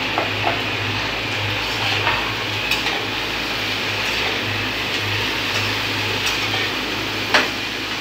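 Mushrooms and broccoli frying in a kadai over a gas flame with a steady sizzle. Occasional sharp clicks and knocks of utensils against the pan and counter come through, the loudest near the end.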